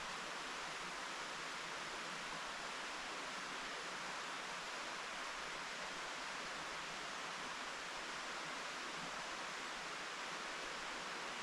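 Mountain stream flowing steadily: an unbroken, even rush of water with no breaks or changes.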